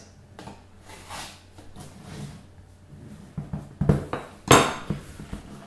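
A smartphone's cardboard retail box being handled and opened on a wooden tabletop: faint rustling, then a few knocks and short scrapes, the sharpest about four and a half seconds in.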